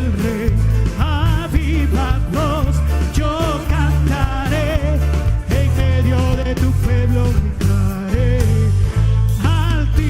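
Live tropical-style gospel praise music: a band with heavy bass and steady percussion under a sung melody with vibrato.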